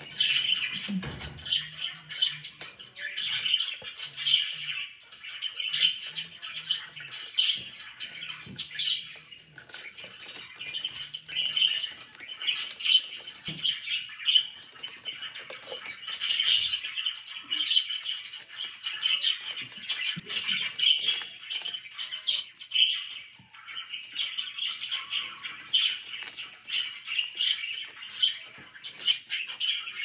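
Budgerigars chirping and chattering continuously, with many short sharp clicks mixed in.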